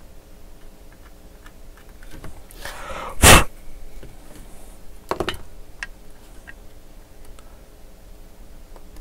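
A drawn-in hiss of breath ending in a short, very loud burst of breath close to the microphone near the middle, then a second, weaker burst about two seconds later. Faint light ticks of hand tools on a circuit board come and go.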